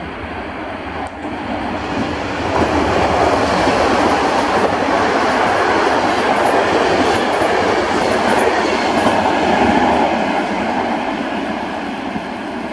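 Electric passenger train passing through the station at speed, its wheels and coaches rushing by on the rails. The noise builds about two seconds in as the train reaches the platform, stays loud, then eases slightly near the end.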